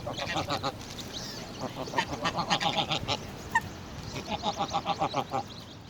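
Waterfowl calling: two runs of fast, rapidly repeated calls about a second long each, one near the middle and one near the end, with a couple of short high peeps between them.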